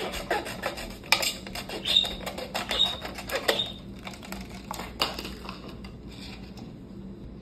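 Scissors snipping through a thin plastic soda bottle, with a quick run of sharp clicks and crackles of the plastic over the first three or four seconds. A single sharp click about five seconds in, then quieter handling of the plastic.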